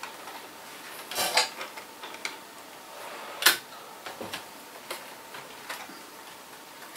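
Model railway coaches being handled and set on the track: a scattering of light clicks and clatters, the sharpest about three and a half seconds in.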